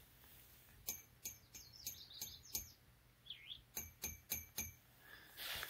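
Faint series of short, high chip calls from a chipmunk hiding inside a metal pipe frame, about three a second in two runs with a short pause between, and a brief rising-and-falling squeak in the gap.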